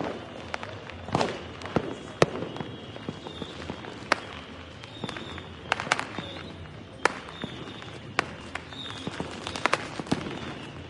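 New Year fireworks going off: a steady run of sharp bangs and pops at irregular intervals over a continuous background of more distant explosions. The loudest bangs come about one and two seconds in.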